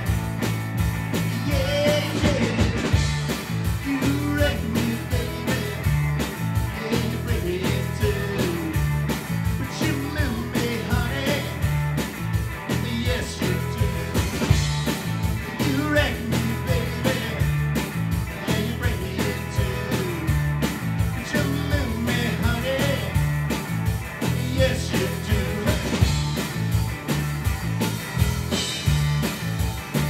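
Live rock band playing electric guitars, electric bass and a drum kit, with a steady repeating bass line.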